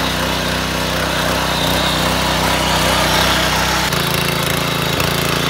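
Small petrol engine of a power weeder (mini tiller) running steadily. Its note changes abruptly about four seconds in.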